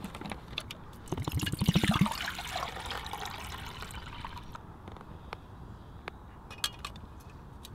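Water poured from a bottle into a metal cooking pot, pulsing in quick glugs at first and then running as a steady stream that tails off. A few light metallic clinks follow as the pot is set down on the spirit burner's stand.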